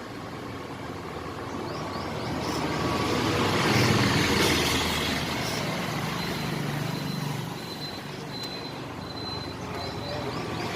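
Road traffic noise: a passing vehicle swells to its loudest about four seconds in, then fades back to a steady hum.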